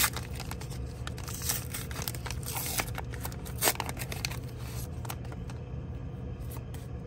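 Plastic wrapper of a McDonald's Pokémon trading card pack being torn open and crinkled: a run of sharp crackles and rips through the first five seconds, the loudest snap a little before four seconds in, then it goes quiet.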